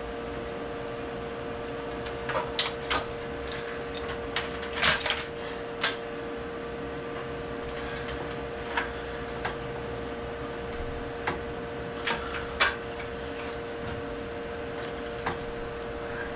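Scattered sharp clicks and taps of hands working with tools and wiring parts, busiest in the first six seconds and sparser after, over a steady hum.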